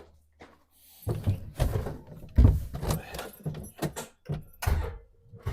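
A run of irregular knocks and clunks, something hard being handled or shut, starting about a second in.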